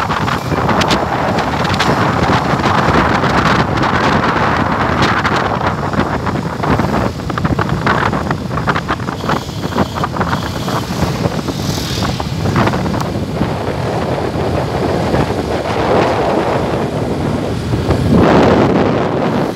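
Wind rushing over the microphone and road noise from a moving vehicle. It stays steady, swelling at the start and again, loudest, near the end.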